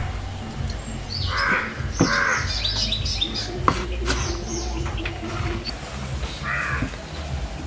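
Crows cawing, harsh calls about a second and a half in, again just after two seconds and once more near the end, while small birds chirp in high, falling notes.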